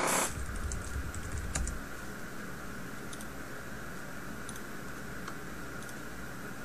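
Typing on a computer keyboard for about two seconds, followed by a few sparse, faint clicks. A short rush of noise comes right at the start.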